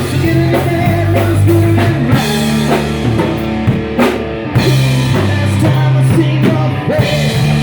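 Rock music: a band with drum kit and electric guitar, and a singing voice over it.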